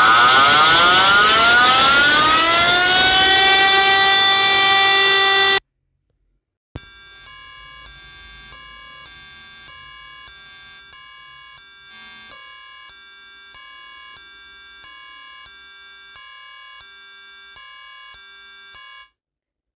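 Electronic emergency-alert tones. A loud, buzzy alarm tone glides down in pitch, levels off, and cuts off suddenly about five and a half seconds in. After a second of silence, a two-tone hi-lo alert switches between two pitches about every half second, then stops shortly before the end.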